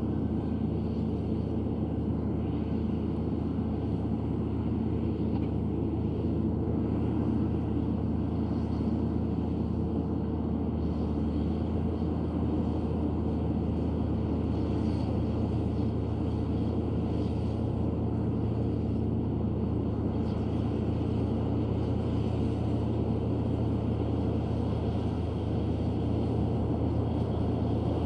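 Komatsu D155A bulldozer's diesel engine running steadily, a low drone that holds at an even pitch and level throughout.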